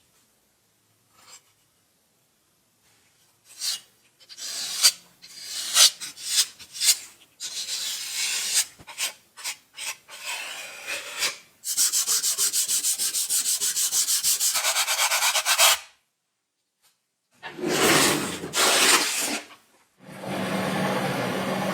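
Wood being sanded and rubbed by hand, first in irregular scraping strokes and then in a fast, even run of strokes for about four seconds. Near the end a steady machine noise with a low hum starts.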